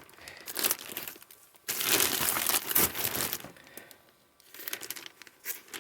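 Packaging being handled and pulled open by hand, crinkling and rustling in uneven spells, loudest about two seconds in, dying away briefly near four seconds before starting again.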